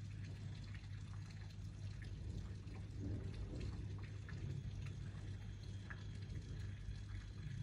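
Steady rain falling in a thunderstorm, with scattered drips ticking throughout, over a low steady hum.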